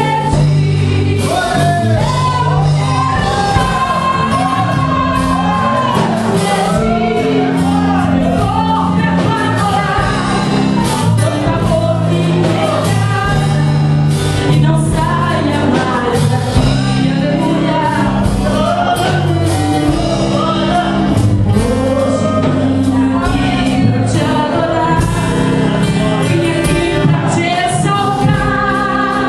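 Live gospel worship music: a woman singing into a microphone over drums and steady low bass notes, her melody sliding up and down without a break.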